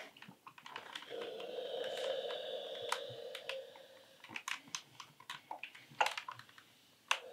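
Steam iron pressing a seam on knit fabric: a faint steady hum for about three seconds from about a second in, then scattered light clicks and taps as the iron and hands move over the fabric.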